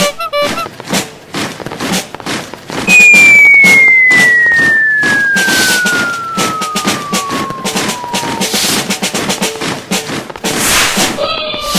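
Rapid crackling pops like firecrackers all through, with a loud, long whistle gliding steadily down in pitch from about three seconds in to about eight seconds. Short tooting tones sound briefly near the start and again near the end.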